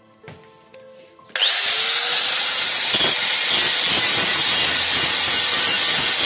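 Handheld electric angle grinder switched on about a second and a half in. Its whine rises as the disc spins up, then it grinds steadily and loudly on the steel of a car chassis member and its welded patch plate.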